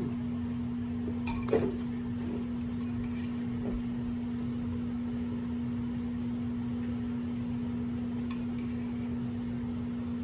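Light clinks of glass and cutlery against dishes during a meal, with a couple of sharper clinks about a second and a half in, over a steady low electrical hum.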